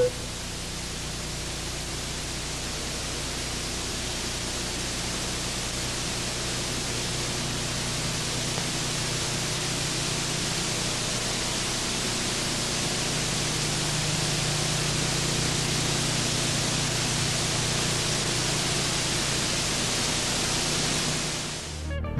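Steady hiss of noise like static, slowly swelling louder, with a faint low hum beneath. It drops away just before the end.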